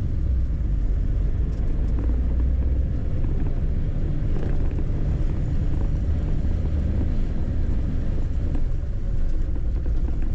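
1936 Ford on the move: a steady low rumble of engine and road.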